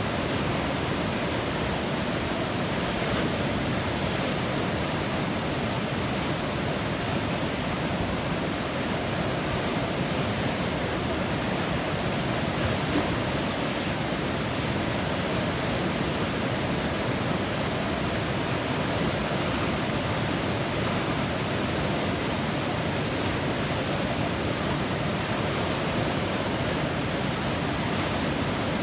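Whitewater river rapids rushing steadily, a continuous wash of churning water that stays even throughout.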